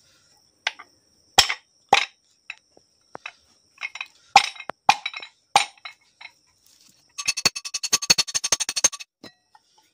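Metal engine parts being handled while an aluminium diesel piston, its piston pin and connecting rod are fitted together: scattered sharp clicks and knocks. Near the end comes a fast rattle of metallic clinks with a ringing tone, lasting about two seconds.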